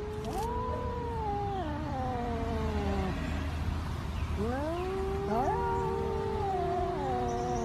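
Two cats yowling at each other in a face-off, the drawn-out threat calls of a standoff. The long wailing calls slide up and down in pitch and overlap: one stretch of about three seconds, then another starting about four seconds in and running to the end.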